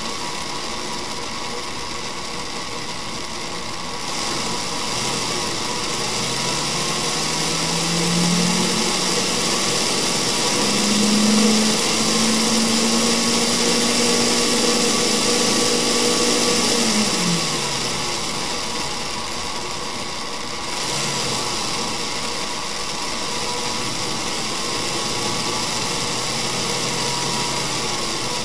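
Homemade electric model V8's DC motor and internal flywheel running with a steady hum. It is sped up about a quarter of the way in, rising in pitch and holding high for about six seconds, then drops back. A second quick rise follows a few seconds later before it settles at a lower steady speed.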